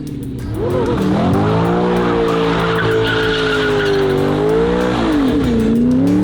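A car doing donuts: the engine revs up about a second in and is held high with its pitch wavering, while the tyres squeal and skid; the revs dip briefly near the end and climb again.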